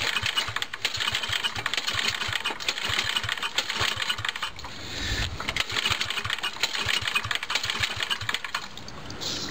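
A small engine's recoil starter being pulled, cranking the engine over without firing because the spark plug is out and a compression gauge sits in the plug hole: a cold compression test. The cranking comes in two spells with a short break about halfway.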